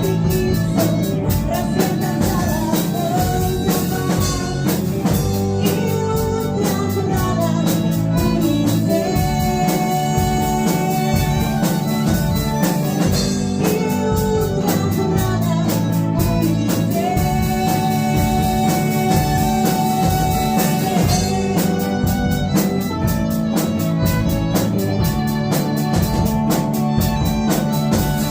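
A rock band playing a song, with a steady drum kit beat under guitar and a melody of long held notes.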